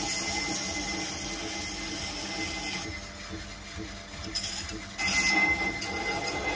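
Knife blade drawn across a spinning 400-grit sharpening wheel: a hissing, squealing scrape with a thin steady whine. It eases off about three seconds in and starts again abruptly and louder about five seconds in, as the next pass begins.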